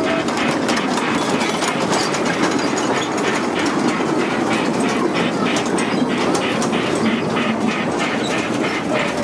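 Small children's ride-on train running round a short track, its wheels clicking steadily over the rail joints a few times a second, over a steady background din.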